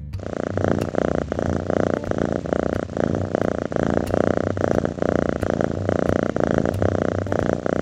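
A cat purring steadily, a continuous fine rattle.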